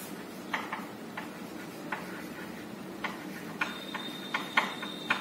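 Chalk tapping and scratching on a chalkboard as a word is written: a string of sharp clicks at uneven intervals. A faint, high, steady whine comes in about two-thirds of the way through.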